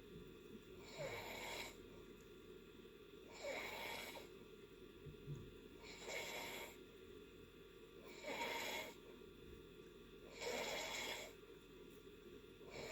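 A person snoring in deep sleep: faint, breathy snores at an even pace, about one every two and a half seconds.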